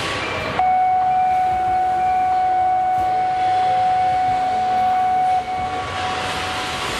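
Steady assembly-line machine noise. About half a second in, one long steady tone starts, like a horn or alarm, and is held for about five seconds before it cuts off.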